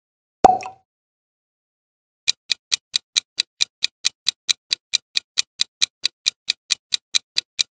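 A short transition sound effect about half a second in. After a pause of silence comes a countdown-timer ticking effect: sharp, evenly spaced clock-like ticks, about five a second.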